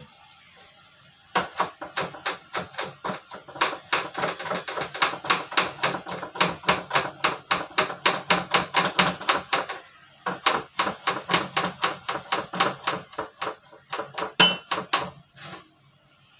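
Kitchen knife rapidly chopping garlic on a wooden chopping board, about six quick knocks a second. The chopping starts about a second in and pauses briefly about ten seconds in.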